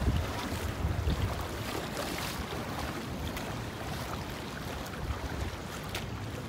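Ocean surf washing on a sandy beach, a steady rushing noise, with wind gusting on the microphone in low rumbles.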